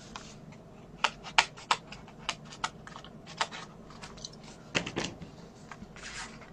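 Light, irregular clicks and taps as sheets of cardstock and a hand-held circle paper punch are handled and set down on the work surface.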